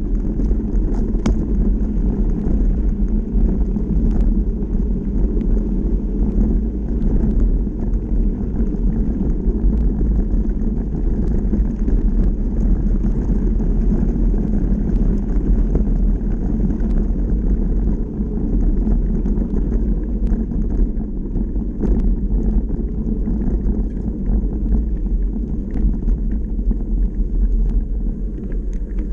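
Electric mountain bike rolling over a gravel dirt track: a steady low rumble from the knobby tyres and the bike rattling on the rough surface, with scattered small ticks and knocks from stones.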